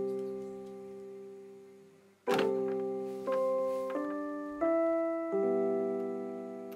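Soundtrack music of slow, sustained piano chords. The first chord fades almost to nothing about two seconds in. A new chord then follows, with its notes changing about once a second and each one decaying.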